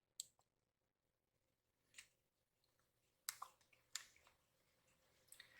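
Near silence with about half a dozen faint, scattered clicks and taps from handling paper sticker sheets.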